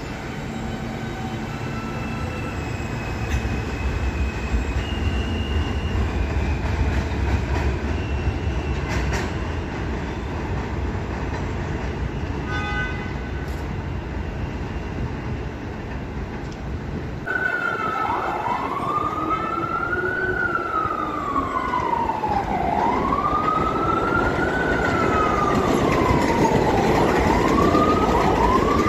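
R160 subway train pulling out: a low rumble with electric motor whine stepping up in pitch as it accelerates, then fading. About two thirds through, a siren wails up and down over the rail noise, growing louder near the end.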